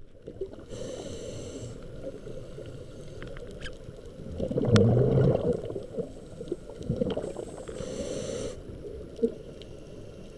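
Underwater sound of a scuba diver breathing through a regulator: a hiss of inhaled air about a second in and again later, and a loud burst of exhaled bubbles gurgling in the middle, over a steady muffled rumble with scattered faint clicks.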